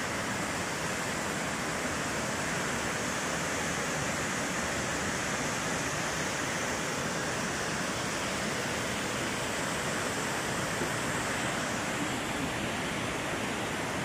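Waterfall falling into its rock pool: a steady, unbroken rush of water.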